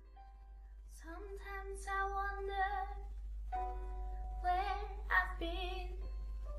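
Female voice singing the slow opening line of a ballad, with a steady low electrical hum underneath.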